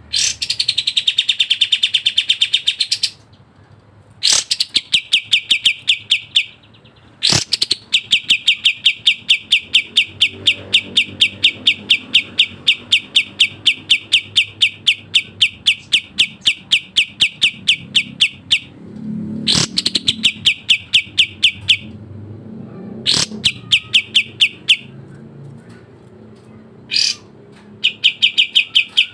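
Kapas tembak bulbul singing in fast, tightly packed trills: long runs of rapid, evenly repeated notes, the longest about ten seconds, broken by short pauses.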